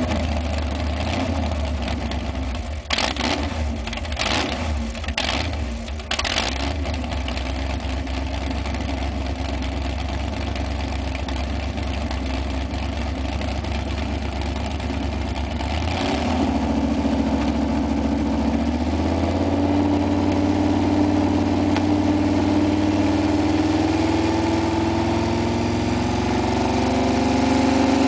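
Rear-mounted engine of a 1963 Ford wheelstander running steadily, with four short sharp bursts about a second apart a few seconds in. In the second half the engine note climbs slowly as it is revved higher.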